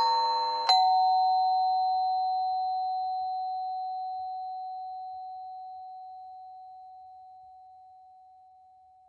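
Ding-dong doorbell chime. The high note, struck just before, is still ringing when the lower note is struck a little under a second in. The lower note then rings on and fades slowly away over about eight seconds.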